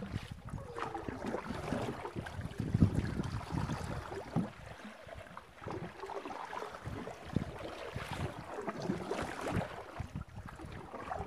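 Water lapping and splashing against a canoe, with wind gusting on the microphone. It is an uneven low rumble broken by small irregular splashes, loudest about three seconds in.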